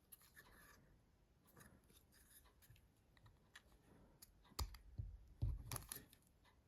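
Faint clicks and scrapes of small plastic mobile phone housing parts being handled and pried at, with a few louder knocks a little past the middle.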